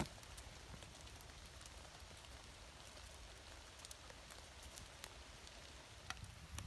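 Firewood burning in a portable camping wood stove, crackling faintly: scattered small sharp pops over a low steady hiss, a few louder pops near the end.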